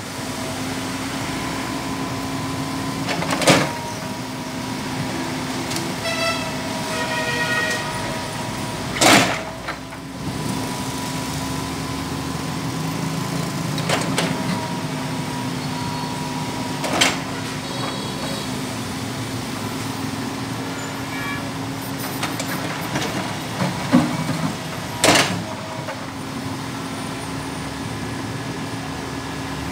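Komatsu PC200 hydraulic excavator's diesel engine running steadily, with five sharp bangs spread through the stretch as the bucket knocks down brickwork and works the rubble.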